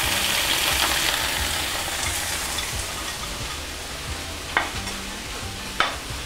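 Deboned sardines sizzling as they fry in hot coconut oil in a pan, the sizzle easing off after the first couple of seconds. Two sharp clicks come about a second apart near the end.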